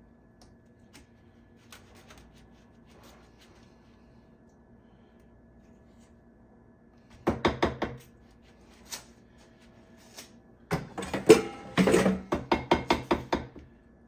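Rapid knocking of a batter-filled metal cake pan against the countertop, in two bursts: about five quick knocks, then after a pause a longer run of a dozen or so. This is the usual way of settling the batter and knocking out air bubbles before baking.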